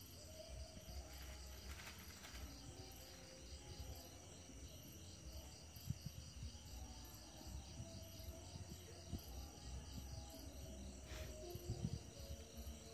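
A faint night chorus of crickets and other insects, a steady high-pitched trill that pulses evenly throughout, over a low rumble. There are a couple of brief clicks or rustles, one about two seconds in and one near the end.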